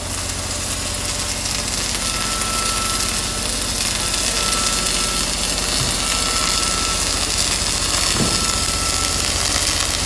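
An engine idling steadily on a construction site, with a high beep that repeats about once every two seconds from about two seconds in, like a reversing alarm.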